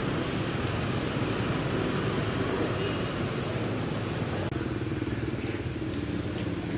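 Steady low background rumble, with a short dropout about four and a half seconds in.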